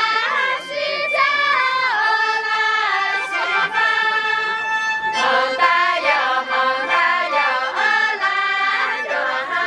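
Several women's voices singing together in high, long-held notes with gliding ornaments, typical of a Miao toasting song sung while rice wine is poured.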